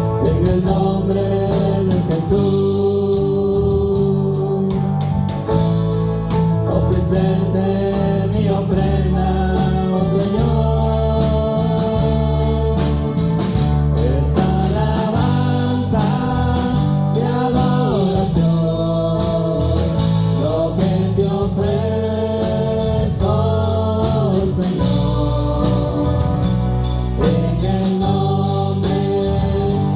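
Live gospel worship music: voices singing a melody together over a band with bass and a steady beat.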